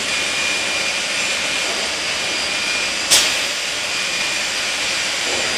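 CNC machine running with a steady whirring hiss and faint high whine, with one sharp click about three seconds in.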